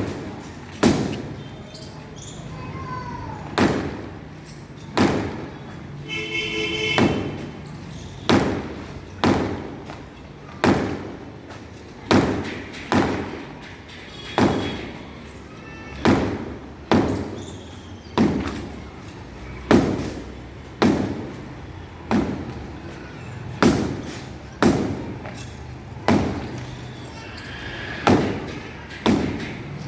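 Heavy hammer blows in house demolition: dull thuds about once a second, unevenly spaced, as walls are broken up by hand.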